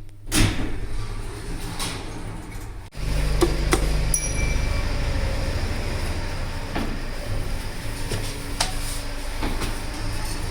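Passenger lift at the ground floor: clicks and knocks from the doors and car machinery over a steady low rumble, with a short high beep about four seconds in.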